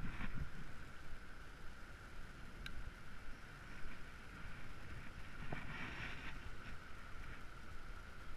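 Faint wind buffeting the microphone, a low fluttering rumble with a thin steady hiss, and a brief brighter rustle about six seconds in.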